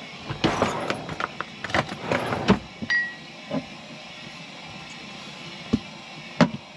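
Glass jar and kitchen things being handled: a run of clattering knocks and rattles, a brief high squeak about three seconds in, then two sharp clicks near the end as the jar's lid comes off.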